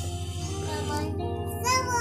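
Background music with a steady low bass line, and a high singing voice that comes in about halfway through.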